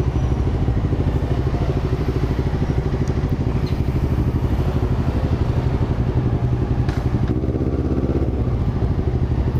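Honda CB500 parallel-twin motorcycle engine running at low, steady revs, with an even pulsing exhaust note.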